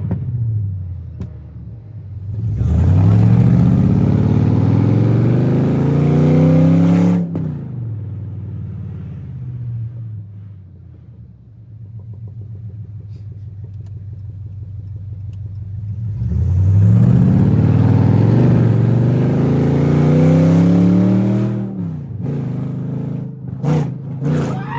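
Car engine with a newly fitted 90 mm throttle body accelerating hard twice. Each time the revs climb steadily for about four to five seconds, then it lifts off suddenly and drops back to a low running in between.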